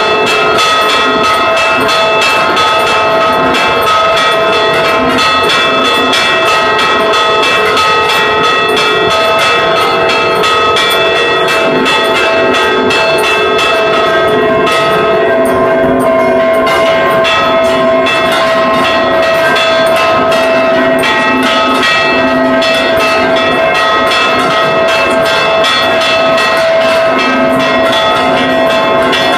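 Large church bells rung in a rapid festive repique: the clappers of the fixed bronze bells are pulled by ropes, and strike follows strike in quick succession while the bells' tones ring on together underneath. The strikes thin out briefly about halfway, then pick up again.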